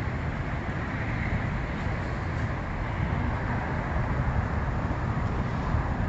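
Road traffic: a steady wash of car noise from the street.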